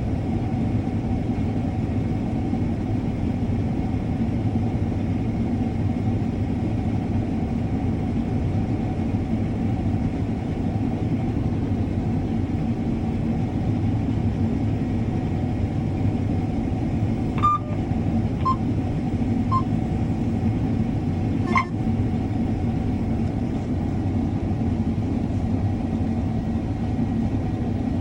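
Combine harvester running steadily under load while cutting wheat, a constant low drone heard from inside the cab. A few short clicks and beeps sound a little over halfway through.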